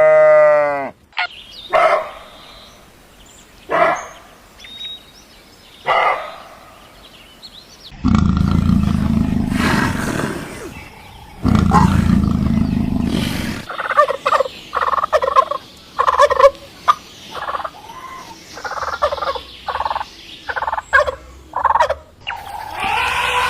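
Farm animal calls: a sheep's bleat ends about a second in, a few short calls follow, then a low rough stretch, and in the second half turkeys gobble in rapid rattling bursts.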